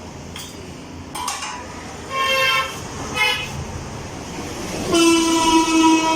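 Vehicle horns honking: two short toots a little after two seconds and about three seconds in, then a longer, louder honk starting about five seconds in and held on past the end.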